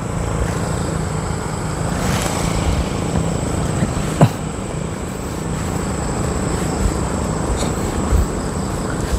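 A motor vehicle engine's steady drone, with a short sharp click about four seconds in.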